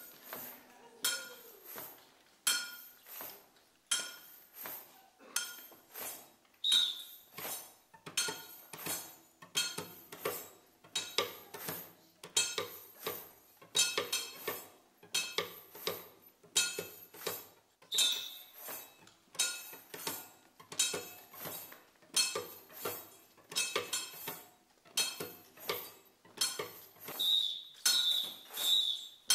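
Rhythmic metallic clanks, as of miners' hand tools striking metal in a stage dance, about one to two strikes a second, each ringing briefly. A high steady tone comes in near the end.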